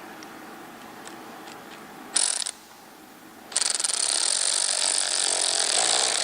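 A handheld power tool runs in a short burst about two seconds in, then steadily for nearly three seconds from about three and a half seconds in, fastening the air filter onto the turbo inlet.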